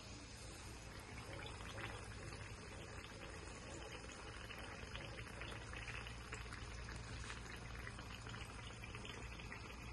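Hot oil sizzling and crackling faintly around a dough ball deep-frying in a small pan, with many small pops throughout.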